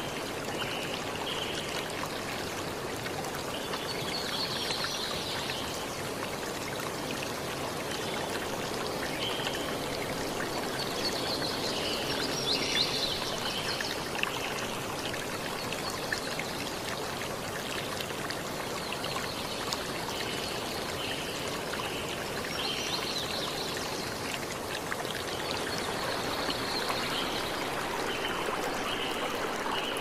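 Steady rush of a flowing stream, with short high calls recurring every few seconds over it.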